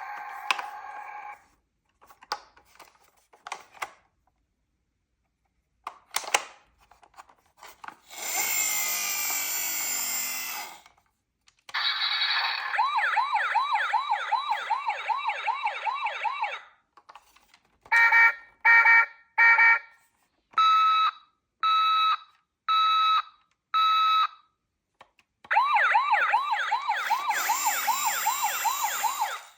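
Electronic sirens of toy ambulance and police cars, set off in turns with button clicks between them. There is a sweeping wail, a fast warbling siren heard twice, and a run of short, evenly spaced beeps.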